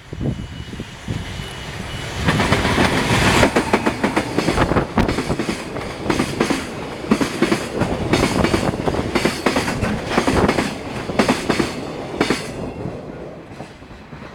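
Freight train wagons rolling past, their wheels clacking over the rail joints in quick runs over a steady rumble, fading away near the end.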